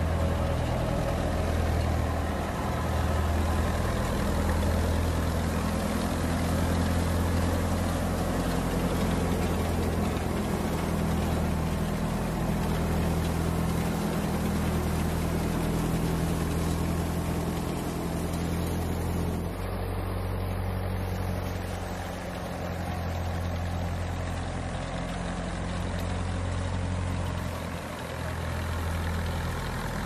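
Wheat thresher running steadily while being fed straw: a continuous low engine hum with the rushing noise of the blower and straw passing through the machine.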